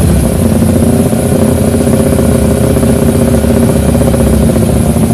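Bored-up Yamaha R25 sportbike's 250cc parallel-twin engine running steadily at the drag-race start line, its note holding even with no rev rises.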